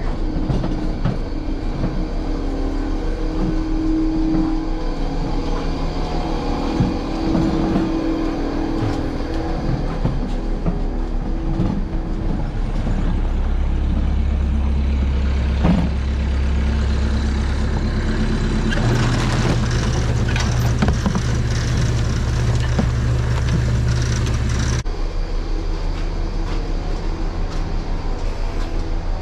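Electric motor driving a converted chopper-box feed wagon, running steadily while silage is fed out to the cows. A deeper drone joins about halfway through and cuts off suddenly a few seconds before the end, as a part of the drive is run and then stopped.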